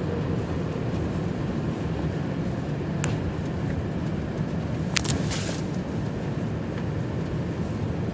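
Steady low rumble of a car driving along a snowy highway, its road and engine noise, with a sharp click about three seconds in and a couple more clicks about five seconds in.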